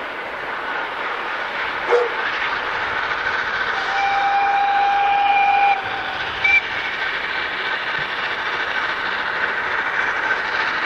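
Steam locomotive whistle, from the 1923 Mallet E211: one long blast of nearly two seconds about four seconds in, then a short toot about a second later, over a steady background noise.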